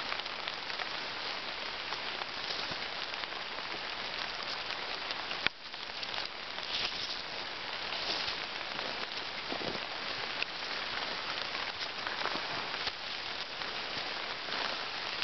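Steady rain pattering on leaves and on the river surface, a dense even hiss of fine drops. A single sharp click about five and a half seconds in.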